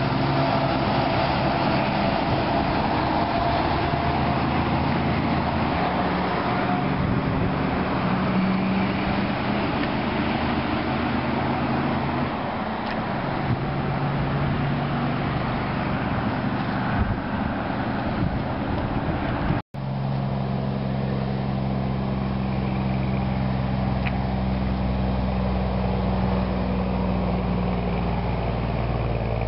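Heavy semi-trailer trucks' diesel engines running past on a highway, a steady engine drone with road noise. The sound cuts out for an instant about two-thirds through, then a steady low engine drone carries on.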